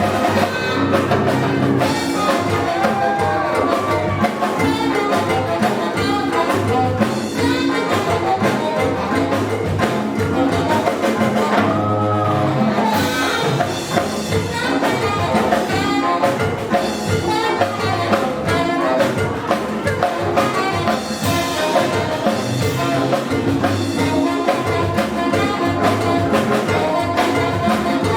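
Brass-led jazz music with trumpets and trombones over a steady, busy rhythm.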